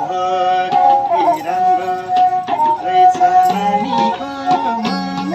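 Nepali sarangi playing a sustained, sliding folk melody, with hand-drum strokes keeping a steady beat.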